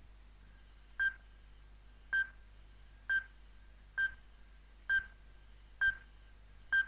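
Epauletted fruit bat calling: a metallic 'clink' ping, repeated seven times at a steady pace of a little under one a second, starting about a second in. Faint steady tape hum underneath.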